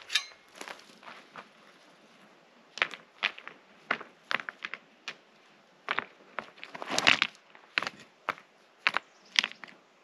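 Rocks of a stone fire ring clacking and knocking together as they are lifted and set down by hand, in a string of sharp, irregular knocks. One sharp knock with a brief ring comes at the very start.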